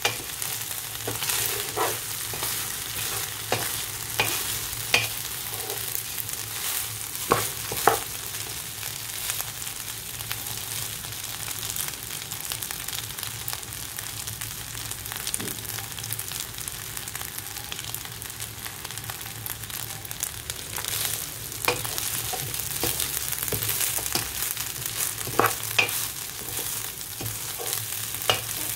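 Soaked basmati rice sizzling in melted ghee and butter as it is stirred and toasted in a nonstick pot with a wooden spatula: a steady hiss, with scattered clicks and scrapes of the spatula against the pot. The rice is being toasted until its grains turn glossy.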